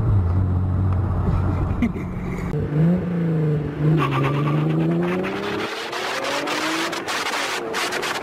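Hyundai Genesis Coupe's 3.8 V6, breathing through an Injen cold air intake, running steadily and then revving, its pitch dipping and then climbing a few seconds in. From about four seconds in, heavy wind rush over a camera mounted outside the moving car builds up and then drowns out the engine.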